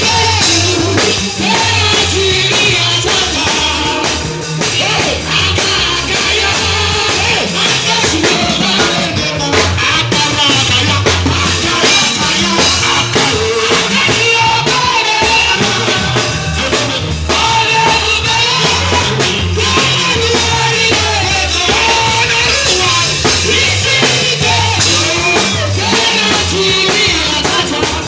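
Loud band music with a singing voice over drum kit and a pulsing bass line.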